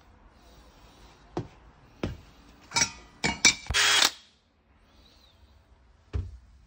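A cordless drill runs in a few short, loud bursts about three seconds in, then stops suddenly. Single knocks of handling come before it and once near the end.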